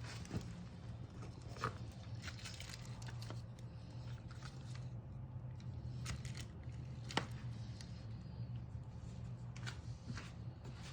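Faint steady low hum with scattered small clicks and taps of handling, one sharper tick a little past the middle.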